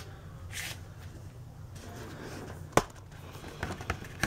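Plastic Blu-ray cases handled: a brief rustle near the start, a sharp click nearly three seconds in, then a few lighter clicks.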